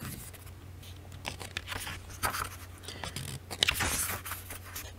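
Paper rustling and crinkling with a few light clicks, as book pages are handled, over a steady low electrical hum.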